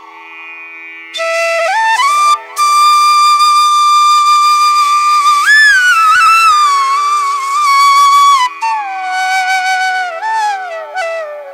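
Solo flute playing a slow melody of long held notes that slide and bend in pitch, over a steady low drone; the flute comes in about a second in.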